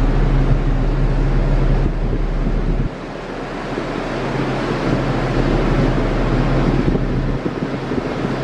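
Wind buffeting the microphone over the low, steady drone of a large container ship passing close by. The level drops suddenly about three seconds in, then the drone returns.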